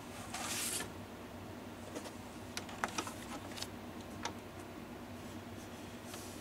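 Vinyl LP being handled and set down on a turntable platter: a brief rustle about half a second in, then a scatter of light clicks and taps over the next couple of seconds.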